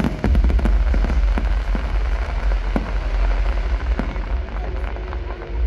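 Aerial fireworks bursting, with scattered sharp crackles and pops over a steady deep rumble.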